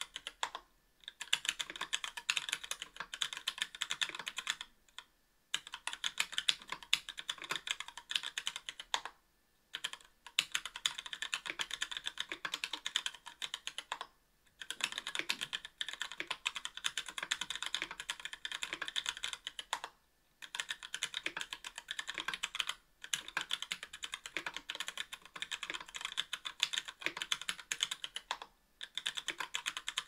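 Fast typing on a KBDfans Tofu 60% aluminum-case keyboard with stock Gateron Brown tactile switches (55 g) on an aluminum plate, with GMK keycaps: a rapid clatter of keystrokes in runs of a few seconds, broken by brief pauses about every three to five seconds.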